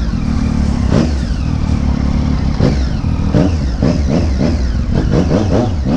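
Sport motorcycle engine running at low speed, its pitch rising and falling in a string of short throttle blips that come thicker in the second half, over a steady low rumble.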